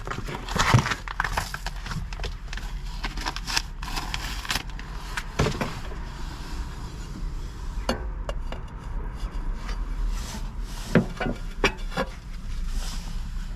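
Scattered taps, knocks and rubbing from handling a stove door and its glass panel during a glass replacement, with a few sharper clicks spread through.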